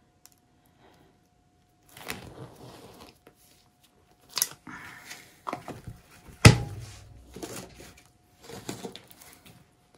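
Handling noises as paint containers are picked up and put down on the work table: intermittent rustling and scraping, with one sharp knock about six and a half seconds in.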